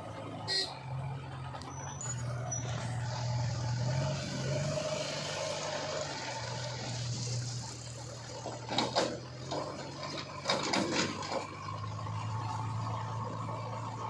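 JCB 3DX backhoe loader's diesel engine running steadily as the machine drives, its pitch rising and falling a little. Short clattering knocks break in briefly about nine seconds in and again around eleven seconds.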